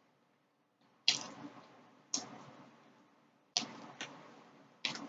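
Close-miked eating: about five sharp, crisp crunches of food being bitten and chewed, each fading quickly.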